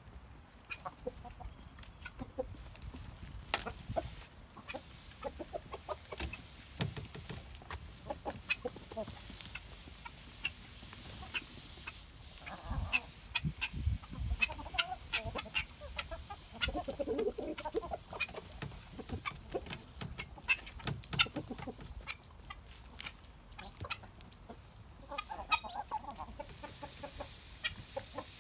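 A flock of Australorp hens clucking in short, soft bursts, with a few louder clusters of clucks now and then, while scratching and pecking in compost litter. Many small sharp ticks and rustles of beaks and feet in the litter run underneath.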